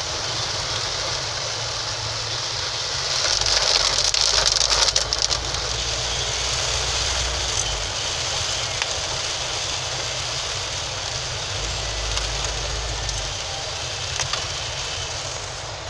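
Heavy rain pattering on a car's windshield and roof, heard from inside the moving car over its engine and road noise. The rain gets louder for a couple of seconds about three and a half seconds in.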